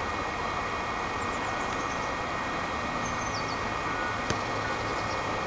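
Steady outdoor background hum and hiss, with faint bird chirps twice and one sharp knock about four seconds in.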